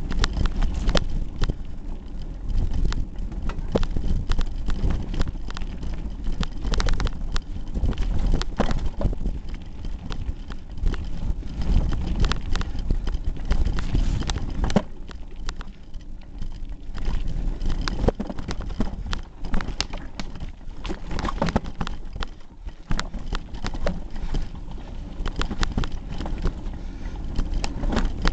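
Hardtail mountain bike clattering down a rocky trail, heard through a pocket camera duct-taped to its handlebars: a constant irregular rattling and knocking of the bike and the loose camera mount over a deep rumble.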